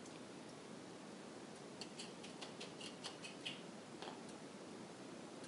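Whisked eggs being poured from a bowl into a frying pan: a run of faint light ticks about two seconds in, over a soft steady hiss.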